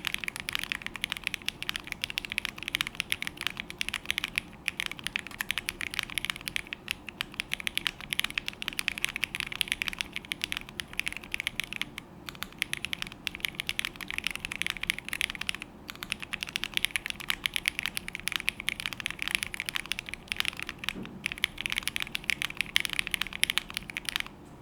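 Fast continuous typing on a Choice65 mechanical keyboard with hand-lubed KTT Meow linear switches, polycarbonate plate, case foam and GMK Colorchrome keycaps: a dense stream of keystroke clacks with a few brief pauses, stopping abruptly near the end.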